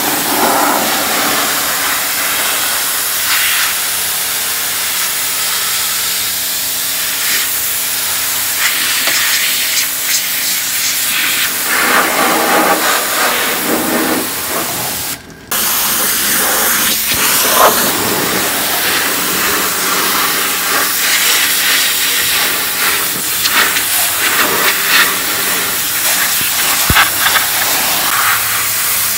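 Pressure washer jet spraying water onto the bare sheet-steel body shell of a car, a loud steady hiss that breaks off for a moment about halfway through.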